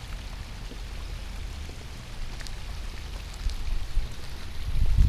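Storm runoff pouring and splashing as a small waterfall after heavy rain, with scattered drips and a low rumble that swells near the end.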